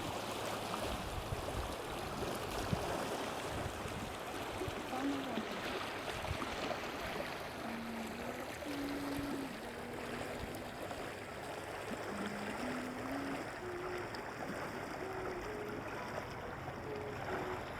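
Steady rushing of a fast river. From about five seconds in, a faint melody of held, stepping notes plays over it.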